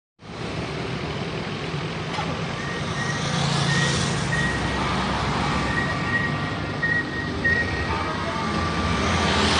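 A bus's engine running with a low hum while a faint electronic tune of short high beeps plays on and off from about three seconds in: the melody the bus sounds while reversing.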